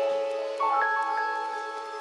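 Background music: sustained chords, with new notes coming in about half a second in and dying away.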